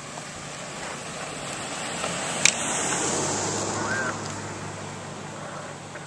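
A vehicle driving past, its tyre and engine noise swelling and then fading away, with one sharp click partway through.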